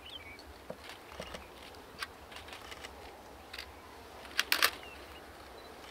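Quiet outdoor ambience with a few faint short bird chirps and scattered light clicks, and a louder quick cluster of sharp clicks about four and a half seconds in.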